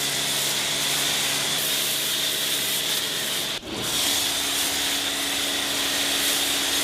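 Steady rubbing, hissing noise of body-shop work, like sanding, broken briefly about three and a half seconds in.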